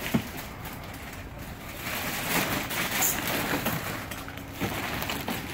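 Black plastic garbage bag rustling and crinkling as it is lifted and handled, with a sharp knock just at the start.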